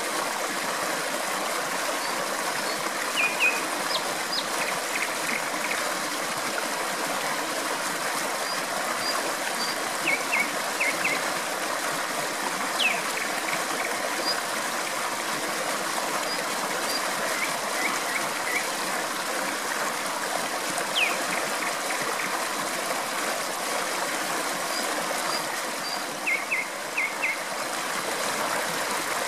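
Flowing stream with a steady rush of water, and a nightingale singing over it every few seconds. Its phrases are short runs of three or four quick repeated notes, with a couple of single sweeping notes.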